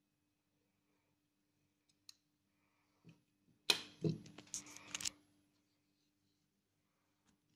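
A pocket watch is handled on a sheet of paper: a single small click, then about four seconds in a short flurry of clicks and paper rustle as the watch is set down and fingered. Otherwise near quiet, with a faint steady hum.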